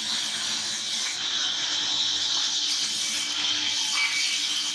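Vertical band saw ripping a log lengthwise on a sawmill table: a steady high hiss of the blade cutting through the wood, with a low steady hum underneath.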